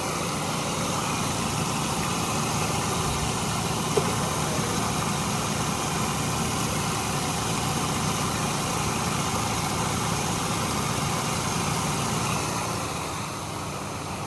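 Chevrolet HHR engine idling steadily with the air conditioning running. A single sharp click comes about four seconds in, and the sound drops slightly near the end.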